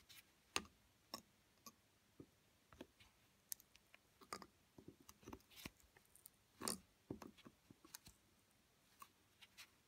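Faint, irregular clicks and taps of a small hand tool on the bent metal tab that holds a Bosch alternator's soldered slip-ring lead, as the tab is worked straight.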